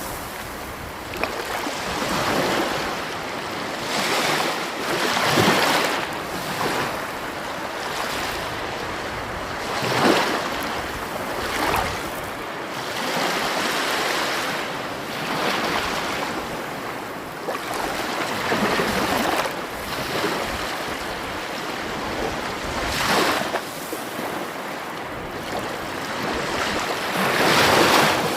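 Sea waves washing onto the shore: a steady rush of surf that swells as a wave breaks every four to five seconds.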